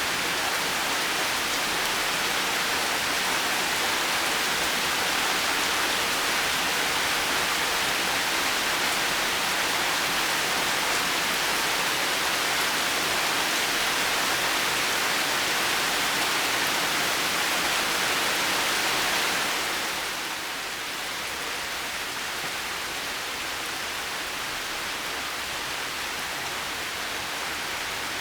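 Heavy rain falling steadily as an even hiss, softening a little about two-thirds of the way through.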